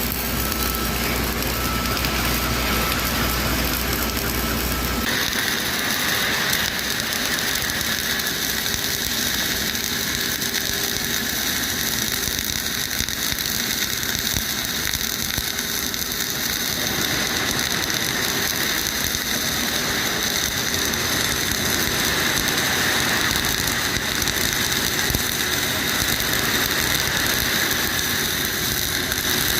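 Flux-cored arc welding a fillet weld with 1.2 mm wire under 80/20 argon-CO2 gas: the arc crackles and sizzles steadily without a break. A low hum drops out abruptly about five seconds in, and the crackle sounds brighter after that.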